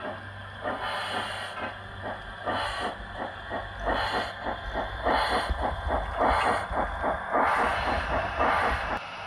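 7mm-scale model steam locomotive running past with a fast, regular beat, about four or five a second, over a low hum. It grows louder as the engine comes close and then cuts off suddenly near the end.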